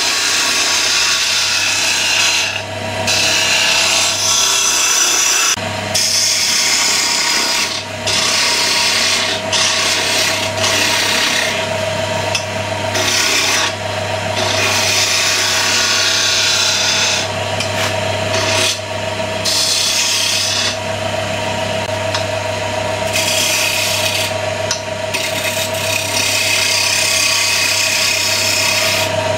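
A gouge cutting a small spindle of pale wood spinning on a wood lathe: a loud hiss of shavings in passes of a few seconds, broken by short pauses as the tool lifts off, over a steady hum from the lathe.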